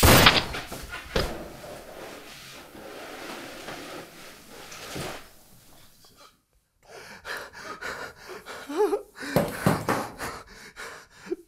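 A sharp bang at the very start, then a steady hiss that dies away about five seconds in. After a short silence, a man pants and gasps with short whimpers.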